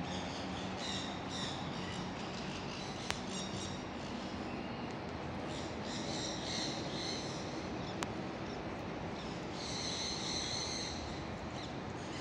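Birds chirping and calling in several short high-pitched bursts over a steady background hiss, with two sharp clicks, about three and eight seconds in.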